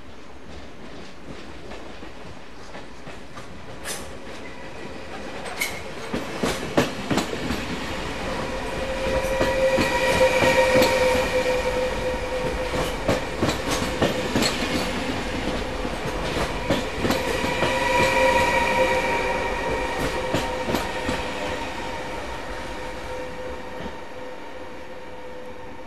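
NS double-deck electric InterCity train running past close by: its wheels click over the rail joints and points, over a steady whine. It grows louder from about four seconds in, is loudest as the carriages go by, and fades near the end.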